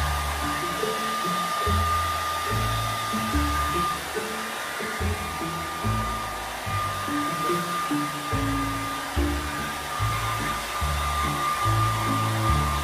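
Handheld electric hair dryer blowing steadily, a rush of air with a thin high whine from its motor, over background music with a changing bass line.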